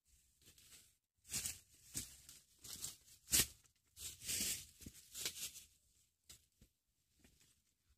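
Irregular rustling and handling noise from hands working coconut bait into a netted umbrella fish trap, with a few sharp clicks.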